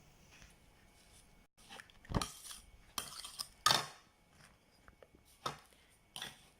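A metal spoon knocking and scraping against a bowl of grated turnip and sugar, a handful of separate clinks, two of them louder than the rest.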